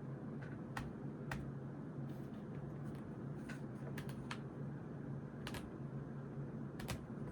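Writing on notebook paper: irregular small taps and clicks of a pen tip on the page and desk, a few a second. A steady low hum runs under them.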